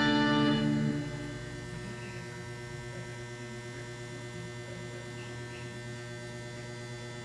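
The last electric guitar notes through a harmonizer pedal ring out and fade within the first second. After that, the guitar rig gives a steady electrical mains hum with no playing.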